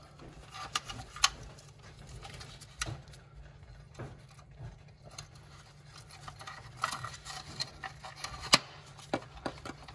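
Scattered light clicks and taps of a plastic under-cabinet LED light housing and its wires being handled, as the wires are pushed through a hole in the housing. The sharpest click comes near the end.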